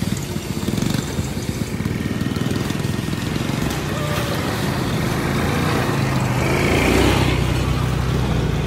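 ATV (quad bike) engines running steadily, swelling a little about seven seconds in as a quad comes on.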